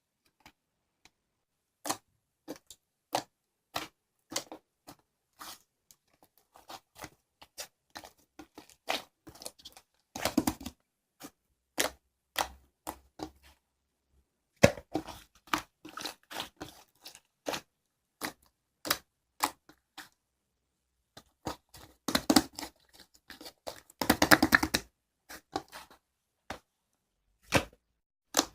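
Irregular sharp clicks and taps, close up in a small room, one at a time with pauses between them, thickening into quick rattling clusters about ten seconds in and again near the three-quarter mark.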